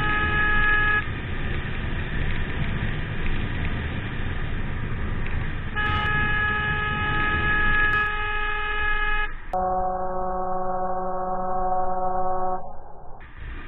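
A vehicle horn sounding steadily over road and engine noise: the end of one blast in the first second, then a second blast of about three and a half seconds near the middle. It is followed by a slowed-down replay in which the horn sounds lower and duller for about three seconds.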